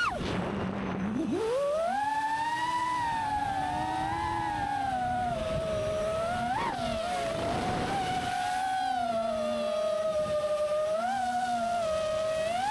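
5-inch FPV quadcopter's T-motor Velox 2207 1950kv motors and Gemfan props whining with throttle. The pitch drops away near the start as the throttle is cut, climbs back about a second later and holds a fairly steady whine with short blips, then rises sharply near the end.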